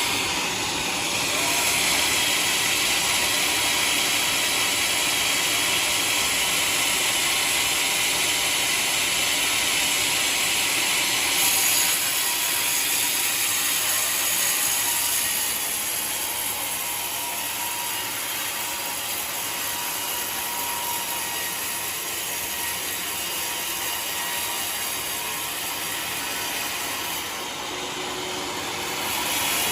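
Homemade sawmill's blade cutting steadily through a waru log, a continuous high, hissing sawing noise that eases slightly about halfway through.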